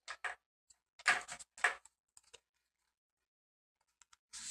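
A cotton swab dabbing and rubbing acrylic paint makes short scratchy taps and scrapes in a few clusters, the loudest about a second in.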